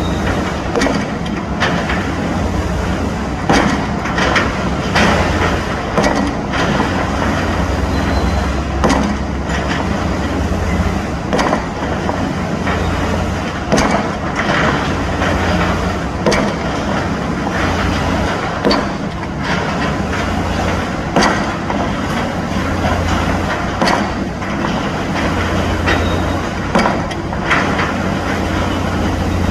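Pile driver at work: heavy hammer blows land about every one to two seconds, unevenly spaced, over a steady low engine drone.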